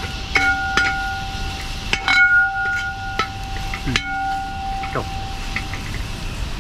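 A metal spoon knocking against a metal cooking vessel about eight times at an uneven pace, and each knock leaves the vessel ringing with a clear bell-like tone. Chili powder is being added to the curry masala at this point.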